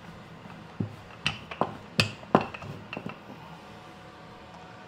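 Wooden rolling pin knocking and clacking on a stone countertop while roti dough is rolled out: a run of short, sharp knocks over the first three seconds.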